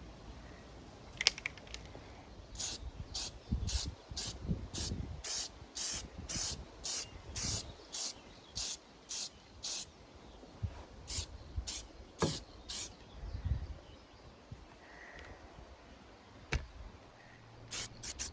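Aerosol can of red spray paint making short, evenly spaced bursts, about two a second, in three runs, with a few knocks of handling between.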